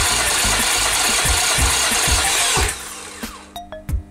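Nissan VQ25DE 2.5-litre V6 being cranked over by its starter for a compression test of cylinder five, with a beat about four times a second as each compression stroke pushes the gauge needle up. The cranking stops suddenly about two and a half seconds in, followed by a few light clicks.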